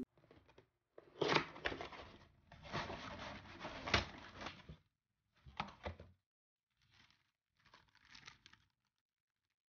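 Plastic bags of model-kit sprues and paper instruction sheets crinkling and rustling as they are handled, in several short bursts with pauses between.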